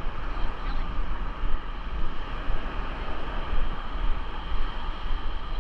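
Wind buffeting the action camera's microphone with an uneven low rumble, over a steady rush of ocean surf.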